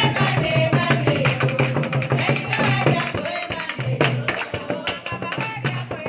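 A group of women singing together with rhythmic hand clapping, over a low steady tone that breaks off now and then.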